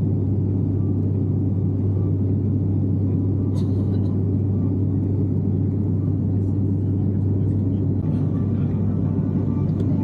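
Turboprop airliner cabin drone from a seat beside the engine: the six-bladed propeller and engine running steadily in cruise, a constant low hum over a dense rumble.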